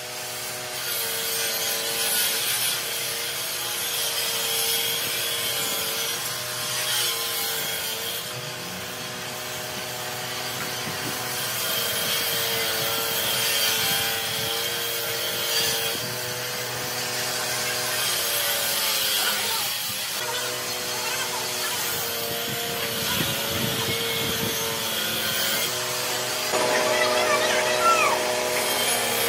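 Moulding sand being scraped and smoothed by hand and with a flat metal slick around a ship-propeller pattern in a sand-casting mould, with a steady hum underneath.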